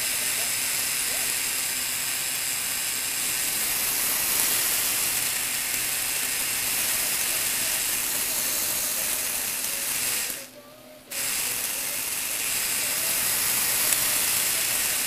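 Lego Technic gearbox driven by its electric motor, the plastic gears and axles whirring steadily. The sound cuts out for about half a second around ten and a half seconds in, then starts again.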